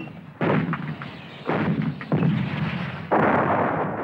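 Artillery fire: four heavy booms in irregular succession, each sudden and dying away, the last one loudest and with the longest tail.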